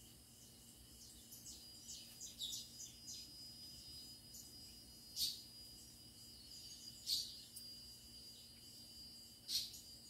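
A faint, steady, high-pitched insect drone with birds chirping over it. Three louder short bird calls that drop in pitch come about five, seven and nine and a half seconds in.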